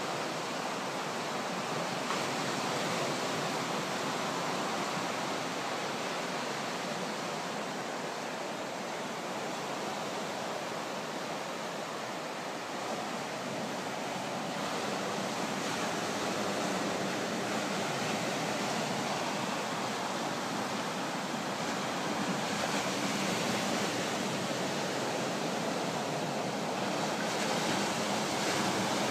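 Ocean surf breaking on a sandy beach: a steady wash of waves that swells and eases gently in loudness.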